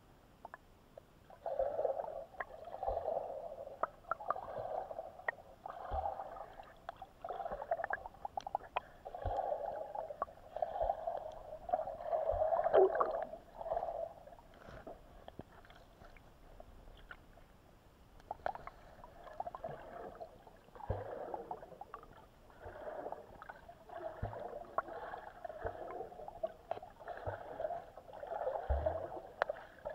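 Muffled underwater water noise against an action camera's waterproof housing as it is moved through the water: repeated swishing surges every second or two, with scattered small clicks and knocks.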